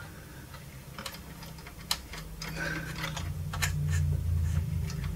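Small brush scrubbing muck out of a turntable's plastic tonearm-lift spring mechanism: a string of small irregular ticks and clicks. A low steady hum comes in about two seconds in and grows louder.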